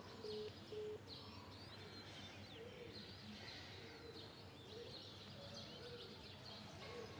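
Mobile phone's call-disconnected tone: short beeps at one steady pitch, about two a second, stopping about a second in, the sign that the call has dropped. After it, faint background with birds chirping.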